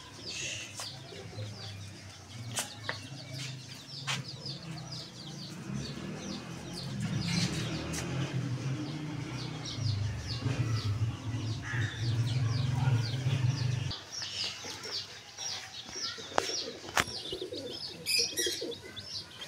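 Birds chirping rapidly in short high calls, with a low pigeon cooing from about six seconds in until about fourteen seconds in, and a few sharp taps.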